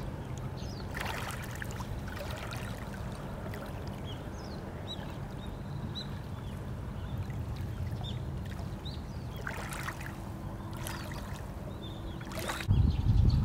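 Water birds on a lake: scattered short high calls and a few splashes over a steady low rumble, which turns suddenly louder near the end.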